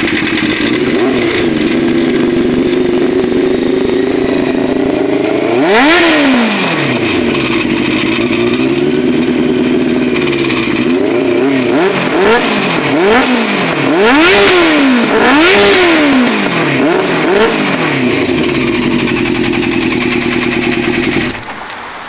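1987 Honda CBR600 Hurricane's inline-four engine through a Vance & Hines aftermarket exhaust, idling and being revved. One rev comes about six seconds in, then a quick run of about six throttle blips, then it settles back to idle and cuts off near the end. The engine has a rapid noise that the owner suspects could be the cam tensioner or valves needing work.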